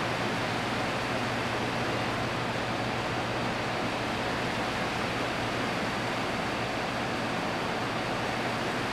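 Steady background hiss with a low, even hum underneath and nothing else standing out: the room tone of a small prayer hall picked up through the microphone during a silent bow.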